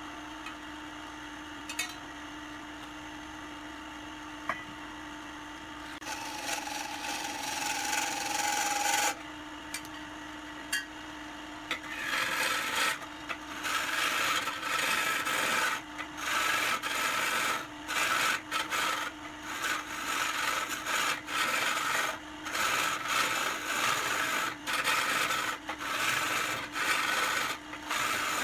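Wood lathe running with a steady motor hum, then a tool scraping against the spinning wood in repeated strokes, each about a second long with short breaks between.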